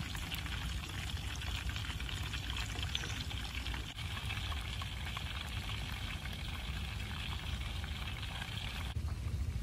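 Whole fish deep-frying in a wok of hot oil: a steady crackling sizzle over a low rumble. The sizzle cuts off near the end.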